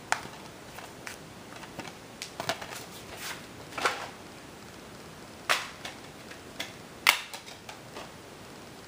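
A series of sharp plastic clicks and knocks, about six loud ones at uneven spacing with smaller taps between, from a DVD case being handled and opened.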